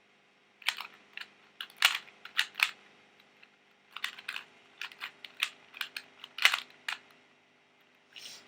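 A plastic 2x2 pocket cube being turned quickly during a speedsolve: irregular runs of sharp clicks, a turn sequence at a time with short pauses, then one brief burst near the end.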